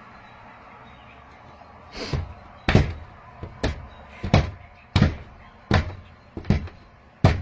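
A series of dull thumps, one about every three-quarters of a second, starting about two seconds in.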